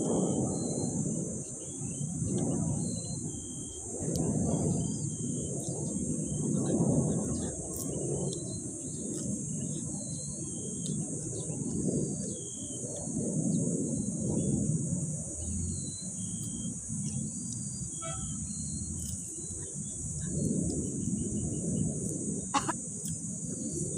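Outdoor ambience: a steady high insect drone with short bird chirps scattered through it, over a louder low rumbling noise that swells and fades. A single sharp click near the end.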